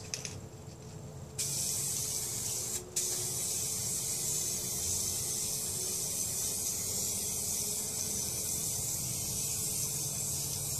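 Aerosol can of hydrographic activator hissing as it is sprayed over camo film floating on water, the step that dissolves the film for dipping. The spray starts about a second and a half in, stops briefly near three seconds, then is held steadily.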